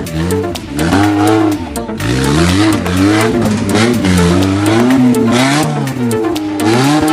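Off-road vehicle's engine revving up and down again and again, its pitch rising and falling about once a second as the throttle is worked over rough ground.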